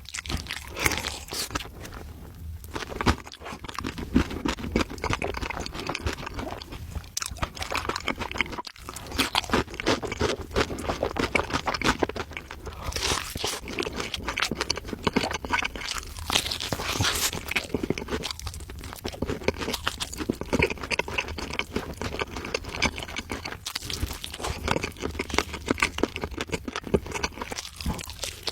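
Crunchy food being bitten and chewed close to the microphone: a dense, irregular run of crunches.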